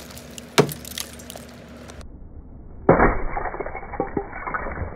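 Glaze ice on a go-kart being broken off with a brick: sharp cracks of ice in the first second, then about three seconds in a heavier blow and a long crackle of ice shattering and pieces scattering.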